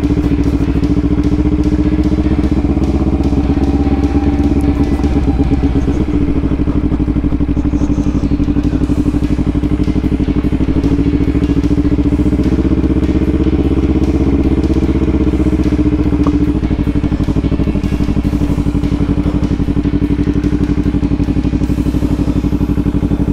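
Motorcycle engine running at low, steady revs while the bike rolls slowly over gravel, its firing pulses coming in a fast, even beat. The revs shift slightly a couple of times.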